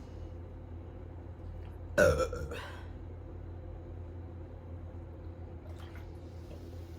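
One loud burp about two seconds in, lasting under a second, brought up by gulping carbonated zero-sugar cola.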